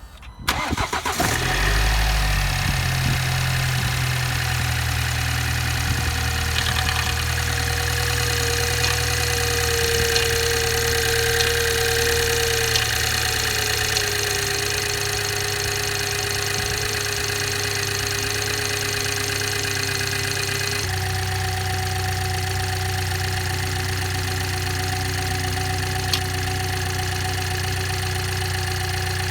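BMW B48 turbocharged four-cylinder cold-started: the starter cranks briefly and the engine catches within about a second, then runs at a fast cold idle. A steady whine sits over the engine note, sliding lower about halfway through, and the idle steps down about two-thirds of the way in. The owner counts these among unexplained extra noises on the cold start.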